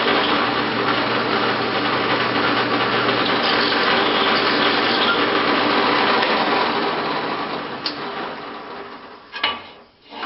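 Drill press running with a small pilot bit, then switched off and spinning down over about three seconds, followed by a sharp click near the end.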